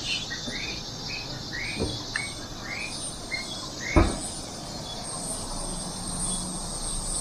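A steady, shrill chorus of insects in forest, with a bird repeating short arched chirps about twice a second for the first four seconds. Two brief knocks sound, a faint one about two seconds in and a sharper, louder one about four seconds in.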